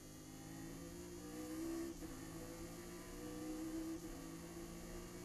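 Chevrolet Nova race car's V8 engine pulling hard, heard from inside the cockpit, its pitch climbing and dropping sharply about two seconds in and again near four seconds as the driver shifts up.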